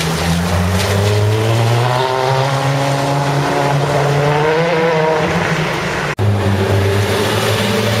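Ferrari 599's V12 engine accelerating, its note climbing in pitch over several seconds, with the hiss of tyres on a flooded road surface. About six seconds in the sound cuts abruptly to another car's engine running at a steady note.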